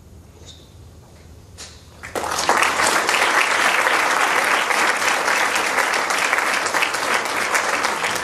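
Audience applauding, starting suddenly about two seconds in and going on steadily.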